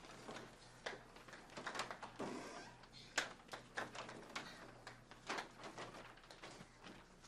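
Scattered light knocks and clicks at a closed wooden door, from someone handling the doorknob and knocking to be let in. The knocks come irregularly, the loudest about three seconds in.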